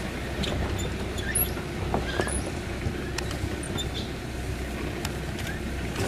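Safari jeep engine running steadily with a low hum, a few faint high chirps over it.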